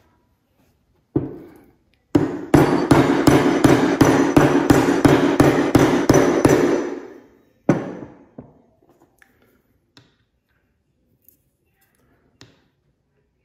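A hammer tapping a ball bearing onto the shaft of a DeWalt DW717 miter saw's motor armature. A single blow, then a fast even run of about three blows a second for some five seconds with a metallic ring under them, one last blow, and a few faint clinks.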